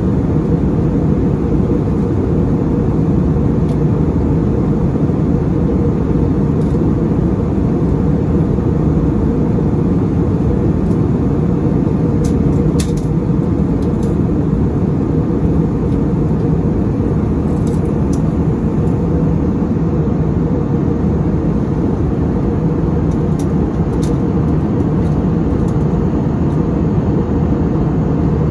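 Steady low roar inside the cabin of an Airbus A320neo in flight, engine and airflow noise heard from a window seat over the wing. A few faint ticks sound now and then.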